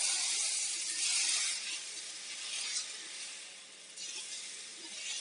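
Pearl millet dosa batter sizzling on a hot cast iron pan as it is poured and spread. The sizzle is loudest in the first second and a half, dies down, then swells again about four seconds in.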